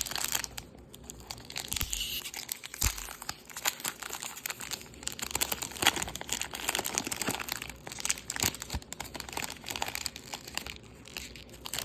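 Cellophane wrapper of a trading-card cello pack crinkling and tearing as it is opened: an irregular run of crackles that stops near the end.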